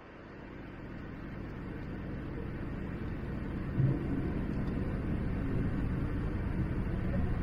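Boeing 787-9 cabin rumble heard from a window seat as the airliner taxis onto the runway, its engines' low steady noise growing gradually louder. A single dull thump comes about four seconds in.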